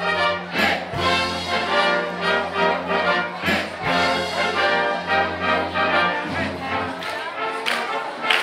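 Brass band playing a tune, several brass instruments sounding held notes over a steady bass line with an even beat.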